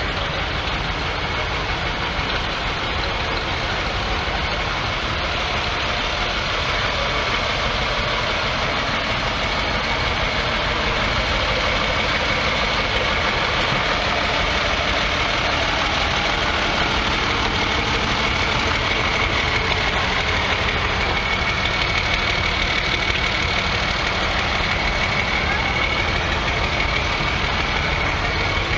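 Vintage farm tractor engines idling, a steady mechanical running with a faint steady high whine, getting a little louder after about ten seconds.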